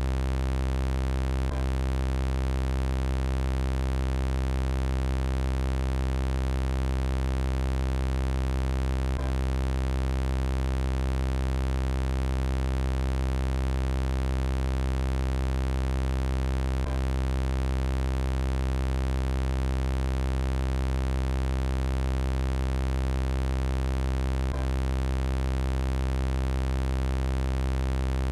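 Synthetic robot-voice sound effect: a steady electronic buzzing drone with a deep hum at its base, holding one pitch without change. A faint click comes about every eight seconds.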